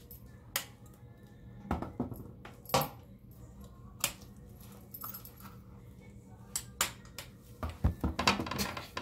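Scattered light clicks and knocks of a cane, a gait-belt buckle and shuffling feet as a person with a walking boot turns and sits down on a toilet, with a denser cluster of knocks near the end as he lowers onto the seat.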